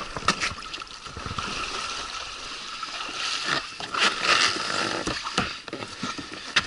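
Shallow water splashing and sloshing around wading legs and an inflatable PVC boat's hull as the boat is pushed off from the shore, with a few light knocks against the boat.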